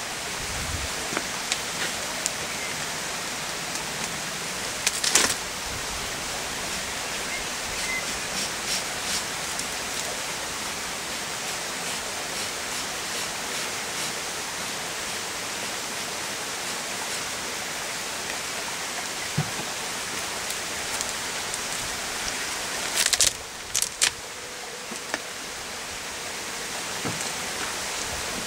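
Steady, even hum of a mass of honeybees flying around an opened hive, with a few sharp knocks from the hive being worked: one about five seconds in and a cluster a little before the end.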